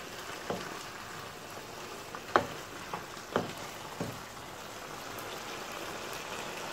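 Onion and capsicum masala sizzling in a non-stick frying pan while it is stirred with a wooden spatula, which knocks against the pan about five times, loudest about two and a half seconds in.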